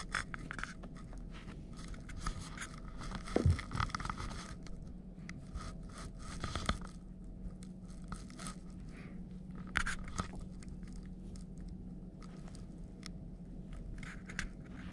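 A kitten playing with a fluffy toy on carpet close to the microphone: scattered rustling and scraping, with a soft thump about three and a half seconds in, over a steady low hum.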